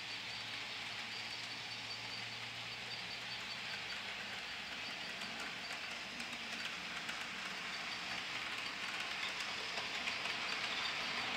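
Model freight train running along the layout track: a steady whirring hiss from the locomotive and rolling cars, with faint clicking of wheels over the track that grows louder as the train comes closer.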